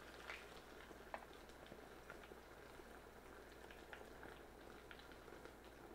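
Tofu frying in a pan of hot oil: faint, steady sizzling with scattered small pops and one sharper tick about a second in.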